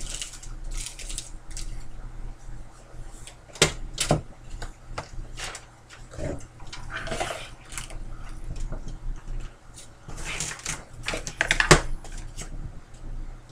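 A Fractal Design Arc Midi R2 PC case being handled and turned upright on a table: scattered clicks, knocks and scrapes of its metal panels, with the loudest knocks a few seconds in and near the end.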